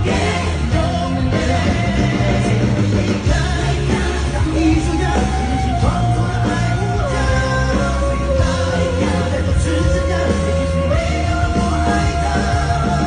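Rock-pop song: a woman sings long held notes into a microphone over a band with heavy bass.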